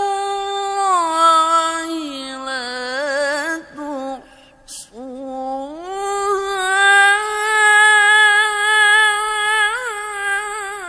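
A male qari's unaccompanied Quran recitation in a high register: a long melismatic vowel held on steady notes, with quick wavering ornaments. About halfway through there is a short break with a brief hiss, and then the voice rises to a louder held note.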